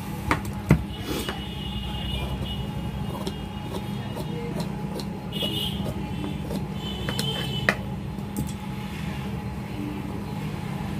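Tailor's shears cutting through dress fabric on a cutting table: a few sharp blade clicks and short scraping streaks, over a steady low background hum.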